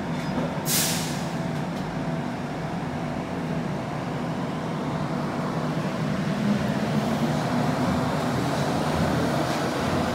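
Bukit Panjang LRT rubber-tyred light rail vehicle: a short, sharp hiss of air about a second in, then a steady mechanical hum and running noise that grows a little louder in the second half.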